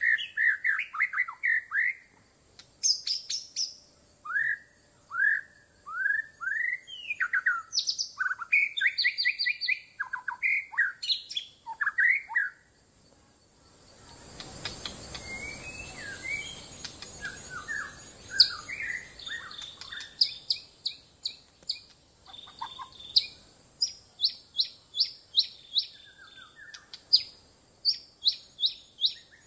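White-rumped shama song, in a singing contest between a caged shama and a wild one. The song is loud and varied: whistled phrases, sliding notes and, near the end, fast runs of short sharp notes. A stretch of hiss sits under quieter song in the middle.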